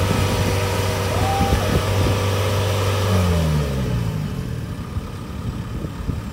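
Diesel engine of a Kubota crawler combine harvester running steadily, then falling in pitch and winding down about three seconds in, leaving a quieter background.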